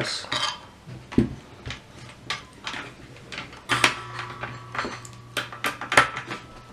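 Irregular clicks and knocks of metal and plastic as a circular saw's blade is fitted, a key worked on the blade bolt and the saw's guard and base handled; a few knocks leave a short metallic ring.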